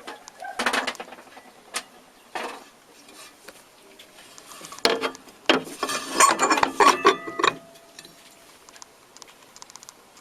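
Handling noise from the turntable bench: irregular clicks, knocks and rubbing as things are picked up and moved. A busier burst comes about five seconds in, with a brief squeak near the end of it.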